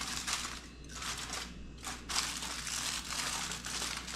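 Aluminium foil crinkling as it is folded and creased by hand to seal a packet, in three spells of rustling with short pauses between.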